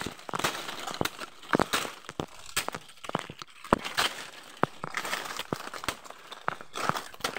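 Leaves, grass and dry stems rustling, crackling and snapping as someone pushes on foot through thick undergrowth, with irregular sharp cracks.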